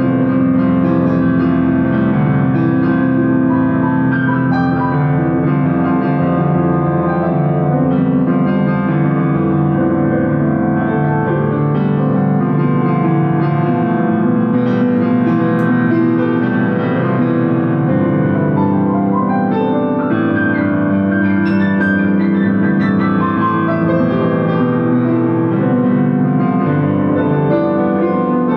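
Piano music playing steadily at an even loudness, with held notes and chords.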